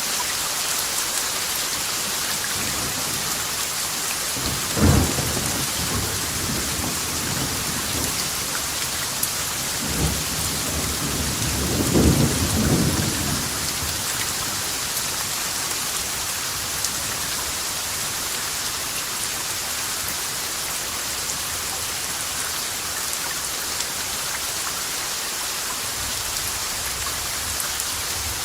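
Steady rain hissing, with thunder breaking through it: a sharp crack about five seconds in, a smaller one around ten seconds, and a longer rumble lasting a second or two around twelve seconds.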